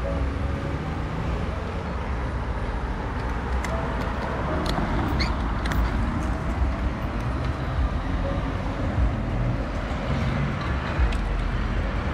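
Steady road traffic noise at a city street crossing, cars running past under a continuous low rumble, with a few light clicks a few seconds in.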